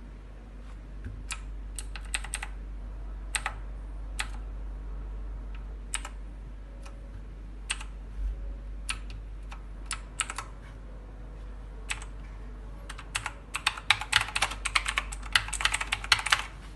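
Typing on a mechanical keyboard: scattered single key clicks and short runs of a few presses, then a fast burst of continuous typing near the end. A steady low hum runs underneath.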